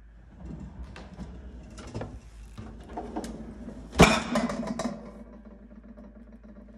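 Kitchen cookware drawers running on their slides, with metal pots, lids and pans knocking and clinking inside. There is one loud bang about four seconds in, followed by a brief metallic ring.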